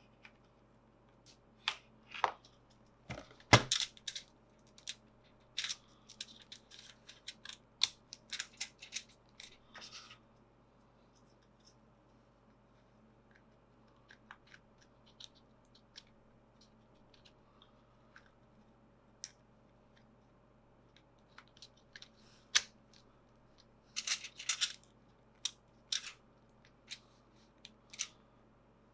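Scattered small clicks, taps and short plastic rustles from handling laptop RAM modules while installing the memory, in two busy stretches with a quiet spell in the middle.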